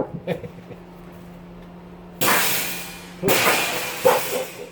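Steady low hum of a stove's fan, with two harsh noisy bursts of about a second each from work on the oven's sheet metal, the first about two seconds in and the second soon after.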